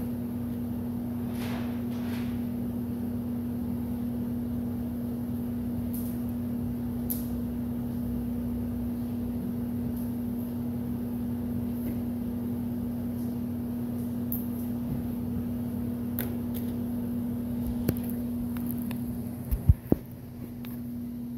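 Steady electric fan and motor hum, with a few sharp knocks near the end.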